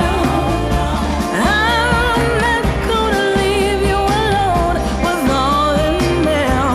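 Background pop song with a sung vocal over a steady beat and bass.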